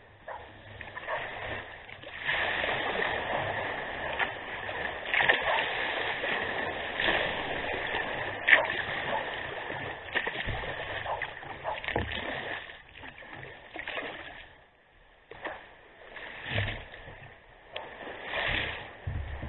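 Water splashing and washing against the bow of a sea kayak under way, with irregular sharper splashes from paddle strokes. It is fullest through the middle and thins out after about fourteen seconds to a few separate splashes.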